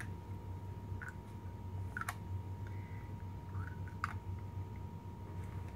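A few light plastic clicks and taps as small plastic trash-can accessories are handled and fitted onto a Toy Biz Peter Parker action figure. The clearest clicks come about two and four seconds in, over a faint steady hum.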